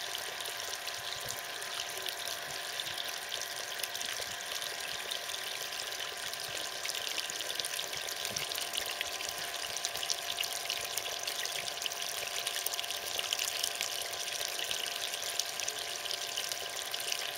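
Water pouring down and splashing steadily over rocks.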